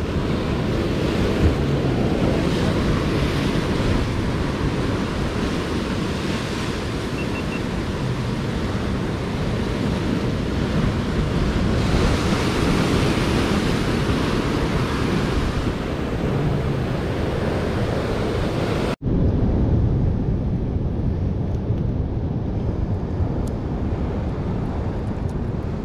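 Sea waves washing and breaking on the shore, with wind rumbling on the microphone. About 19 seconds in the sound breaks off for an instant and then goes on duller, with the hiss cut away.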